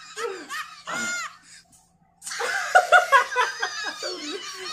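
Two men laughing in bursts, breaking off briefly about halfway, then laughing harder.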